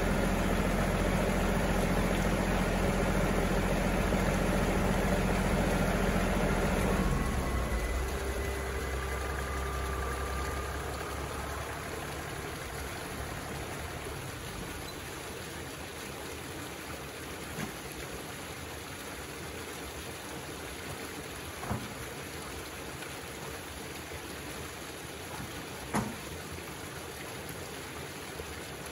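A John Deere compact tractor's diesel engine idling, then shut off about seven seconds in. After that, pond water trickles steadily down a drainage trench, with a few faint knocks.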